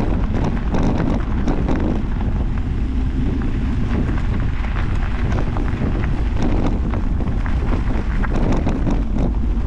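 Wind rushing over an action camera's microphone on a moving mountain bike, with tyres rolling over a gravel track and frequent small clicks and rattles from the bike.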